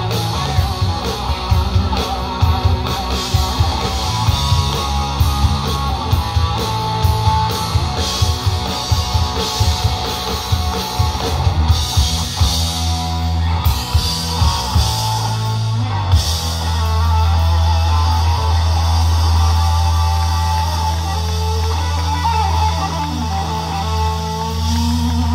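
Live rock band playing an instrumental passage with electric guitars, bass and drum kit, recorded from among the crowd. About two thirds of the way through, the drum hits stop and the band holds a long, steady low chord.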